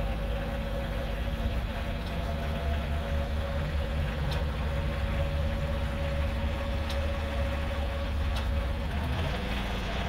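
Compact tractor engine running steadily while its front loader raises a heavy LVL beam on pallet forks, with a steady whine that stops near the end.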